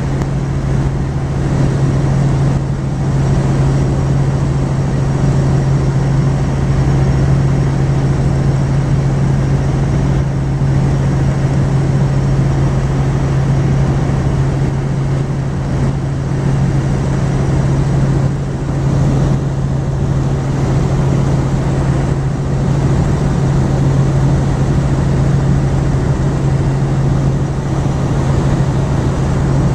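Helicopter in steady cruising flight heard from on board: the rotor and engine make a loud, steady drone with a strong low hum over a broad rushing noise.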